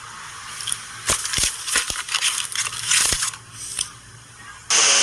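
Crushing, crackling sound effect: a dense run of sharp cracks and clicks about a second in that lasts a couple of seconds. A louder, different effect cuts in abruptly near the end.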